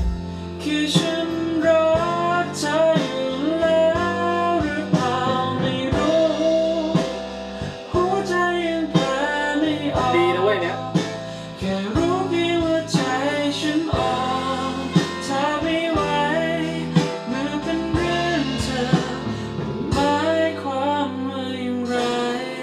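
A male vocalist singing a song in Thai over instrumental backing with guitar.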